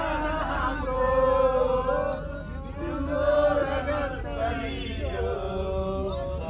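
A group of people singing together in unison, holding long notes that slide from one pitch to the next, over a low background rumble.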